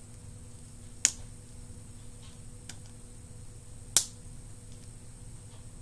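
Plastic surprise-egg capsule being twisted and pried at by hand, its halves giving sharp plastic clicks: two loud snaps, about a second in and near four seconds, with a few fainter ticks between. The egg is hard to open.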